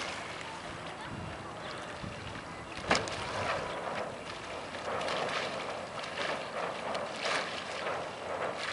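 Breeze and small ripples lapping in shallow water, a fluctuating wash of noise with wind buffeting the microphone. A single sharp click about three seconds in.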